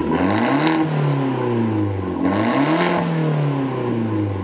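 Fiat 500 Abarth's turbocharged 1.4-litre four-cylinder engine revved twice through its exhaust. Each time the pitch climbs quickly and then sinks back slowly.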